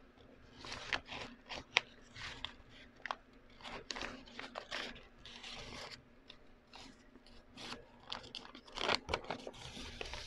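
Stiff Manila pattern paper being folded and creased by hand, crackling and rustling in short, irregular bursts.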